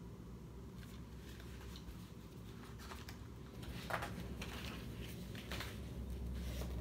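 Pages of a hardcover picture book being turned and handled: several short paper rustles, the sharpest about four seconds in, over a low steady hum.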